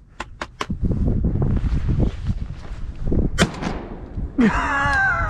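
A single shotgun shot about three and a half seconds in, over wind buffeting the microphone, with a few sharp clicks near the start. A man's voice calls out near the end.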